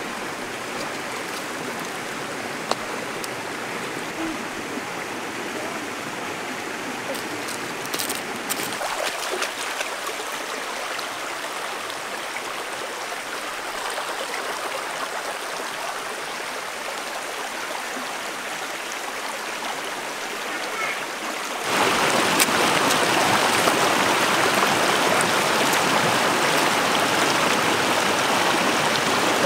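Shallow rocky stream running over stones, a steady wash of water. It gets louder about three quarters of the way through.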